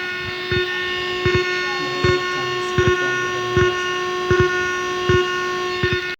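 An amplifier's loudspeaker giving out a steady whine of several tones, with a short tick about every three-quarters of a second. This is the bad-signal noise the amplifier makes in Bluetooth/USB mode.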